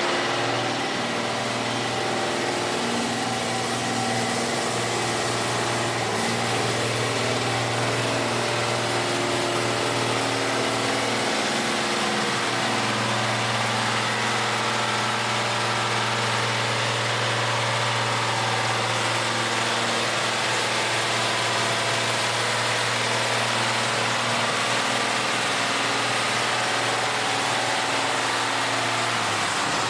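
Csepel D566 6x6 army truck's diesel engine running at steady low revs while the truck crawls off-road through sand and mud, with a slight dip in the engine note about twelve seconds in.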